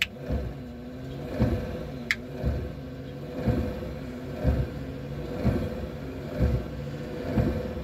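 Replacement windshield wiper motor on a Dodge Dart running under test with the wiper linkage reconnected. Its hum rises and falls in a steady cycle about once a second as the wiper pivots sweep back and forth, and the newly pressed-in linkage arm holds on.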